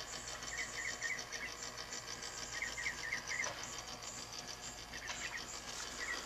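Insects chirping in a steady, fast pulsing, with short bursts of higher chirps every couple of seconds.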